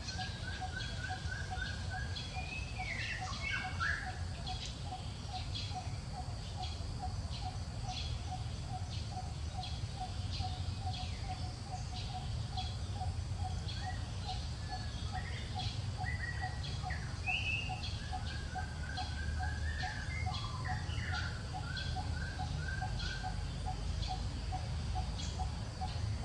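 Outdoor birdsong: several birds chirping, with short trills and quick rising and falling whistles, over a low note repeated steadily about four times a second and a constant low background rumble.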